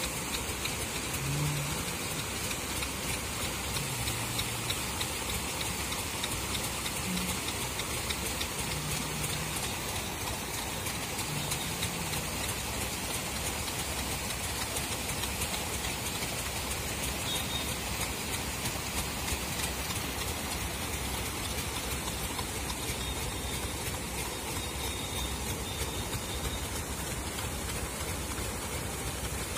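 Several paddlewheel aerators running in a shrimp pond, their paddles churning the water into a steady rushing splash, like heavy rain.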